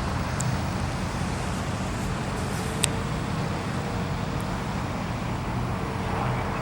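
Steady low rumble of motor vehicles or running engines. A faint thin hum comes in partway through, and there is one sharp click about three seconds in.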